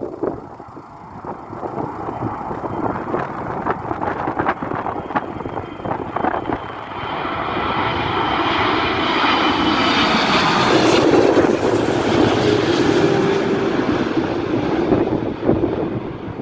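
Boeing 777-300ER's twin GE90-115B turbofans on landing approach, passing low overhead. The jet noise swells from about seven seconds in, with a high fan whine, and is loudest a few seconds later before it fades as the airliner moves away.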